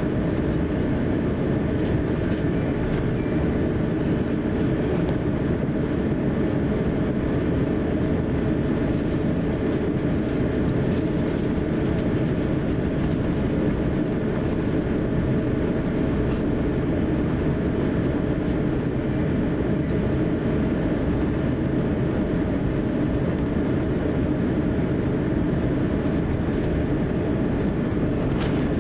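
Cabin noise of an Airbus A350-900 taxiing: a steady low rumble from its Rolls-Royce Trent XWB engines at taxi power and the rolling airframe, with a few faint steady hums.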